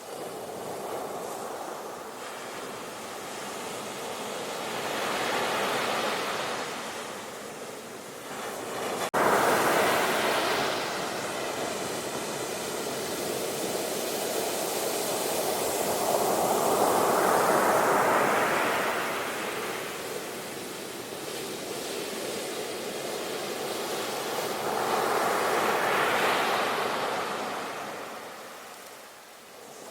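Ocean surf: waves breaking and washing in foam, swelling and fading several times, with a sudden louder crash about nine seconds in.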